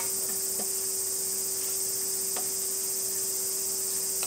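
Steady high-pitched buzzing chorus of summer cicadas, with a steady low hum underneath and two faint light taps.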